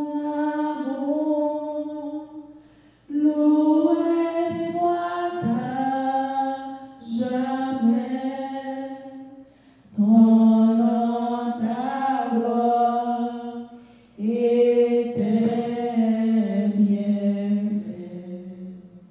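A woman's solo voice singing a slow French hymn of praise unaccompanied, holding long notes. It comes in about five phrases, with a short breath between each.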